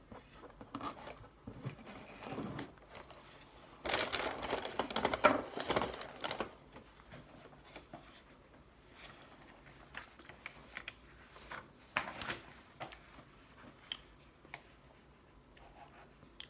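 Paper fast-food packaging being handled, crinkling and rustling. It is loudest for about two seconds around four seconds in, with scattered light taps and clicks before and after.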